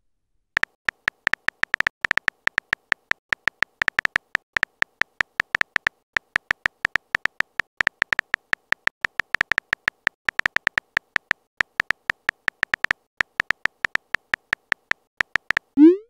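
Phone keyboard typing sound effect: short, sharp electronic clicks, about five or six a second, in uneven runs with brief pauses. A short rising tone comes right at the end.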